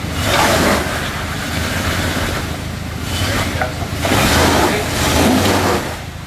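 Off-road vehicle engine running steadily, with three surges of rushing noise over it, the loudest about four to six seconds in.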